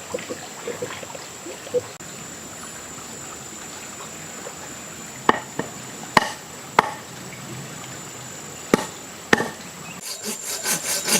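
Hand work on wood: a few faint clicks, then a handful of sharp, spaced knocks. Near the end, rhythmic sawing strokes start at about three to four a second.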